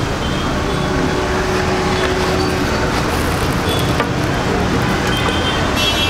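Steady roadside traffic noise, with a single light click about four seconds in.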